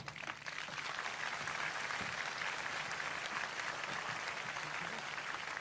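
Large audience applauding, the clapping swelling over the first second and then going on steadily.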